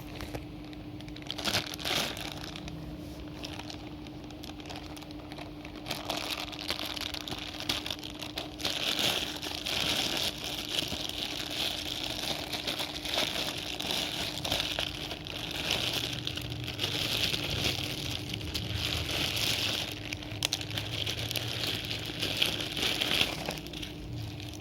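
Plastic parcel packaging being crinkled and crumpled by hand as it is unwrapped, with many small crackles. The crinkling is light at first and grows busier and louder from about six seconds in until shortly before the end, over a steady low hum.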